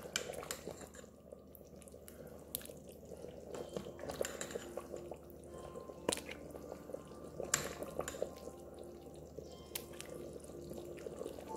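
Stainless steel ladle scooping thick curry out of an Instant Pot's steel inner pot and onto a plate: quiet wet slopping and dripping of sauce, with a few sharp clinks of the ladle against the pot.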